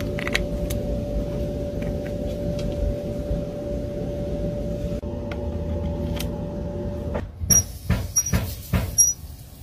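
A steady hum with a constant whine, with a few faint clicks as an HDMI plug is pushed into a 3D-printed hose adapter. About seven seconds in the hum stops and an outdoor hose spigot's handle is turned, giving a quick run of sharp knocks and short high squeaks.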